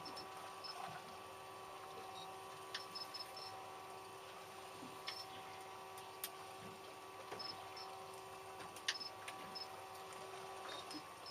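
Faint irregular clicks and ticks with short high beeps, over a steady electrical hum.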